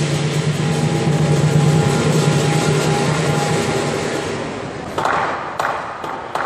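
Lion dance percussion: a dense, ringing wash of clashing cymbals and gong with drum, fading off about four seconds in, then a fresh burst of sound about five seconds in.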